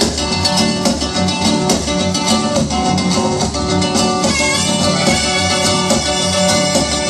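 Regional Mexican dance music from a band played loud, with guitars over a steady, pulsing bass beat.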